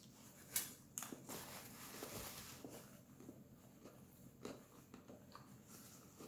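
Person eating: soft chewing and mouth noises with a few short, sharp clicks and smacks, loudest about half a second and a second in.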